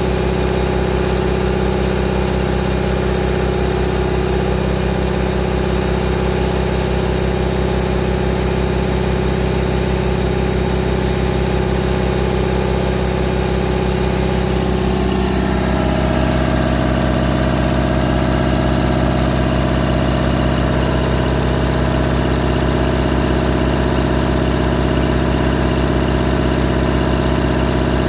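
1965 generator's engine running steadily on a mix of compressed hydrogen and oxyhydrogen (HHO) gas. Its note shifts and gets slightly louder about halfway through.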